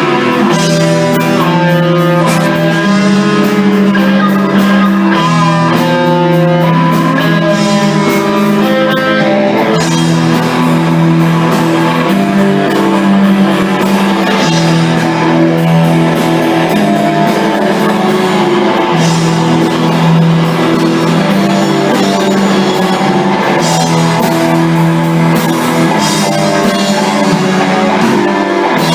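Rock band playing: electric guitar, keyboard and drums, with sustained chords underneath and a higher melody line over roughly the first third.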